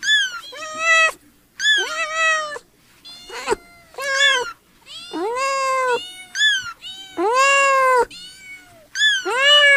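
Domestic cats meowing over and over: a run of about nine separate meows, each rising and then falling in pitch, with short pauses between them.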